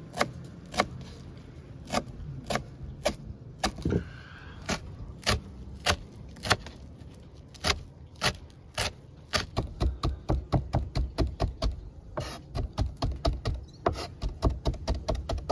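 A large kitchen knife chopping fresh coriander leaves on a cutting board, each stroke a sharp knock of the blade against the board. The strokes come slowly and singly at first, then speed up to rapid chopping about two-thirds of the way through.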